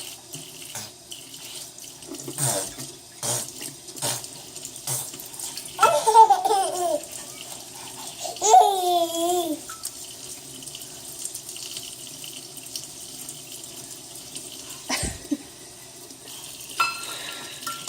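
Kitchen faucet running into a sink, with splashes and knocks as a toddler slaps at the water during the first few seconds. A child's voice calls out twice, and a single sharp knock comes near the end.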